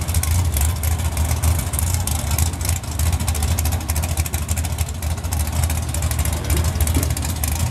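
Camaro drag car's engine idling loudly and steadily at the start line while it stages, a fast even rumble with no revving or launch.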